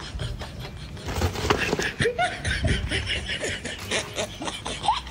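Laughter, picking up about a second in and going on in short breathy gusts.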